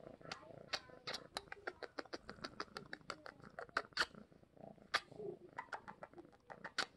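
Domestic cat purring while being petted, with a quick run of sharp clicks over it, several a second for the first few seconds and sparser after.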